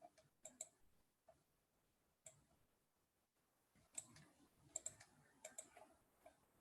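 Faint, irregular clicks from a computer mouse and keyboard as a form is filled in, with a small flurry about four to six seconds in, over a near-silent room.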